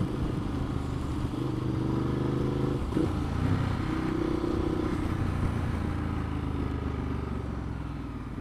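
Ducati Multistrada 1200's L-twin engine running at steady revs, easing off slightly near the end, with wind rushing past the rider.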